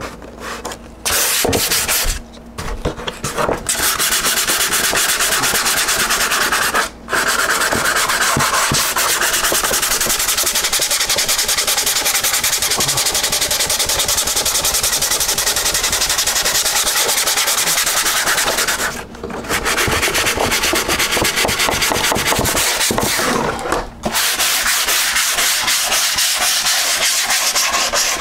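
Sandpaper rubbed by hand back and forth over a fiberglass-and-resin-covered model airplane wing: a steady, scratchy sanding noise, broken by a few short pauses.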